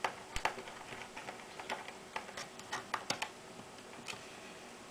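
Faint, irregular clicks and ticks of a small screwdriver driving small screws into a plastic project box.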